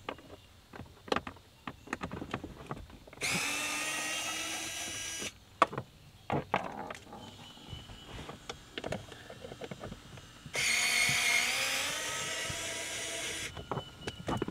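Small power driver with a 7/32 socket whining in two runs of about two to three seconds each, backing out the screws of a blower motor control module. Light clicks and rattles of handled parts come between the runs.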